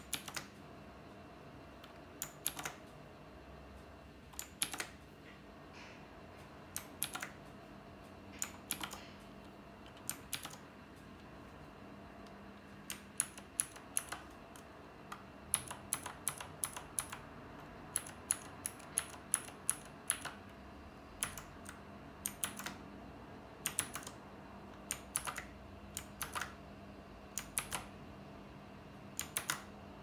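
Single key presses on a Knewkey Rymek typewriter-style mechanical keyboard: separate clicks with irregular spacing, a second or two apart at first and coming more often, about two a second, from about halfway through.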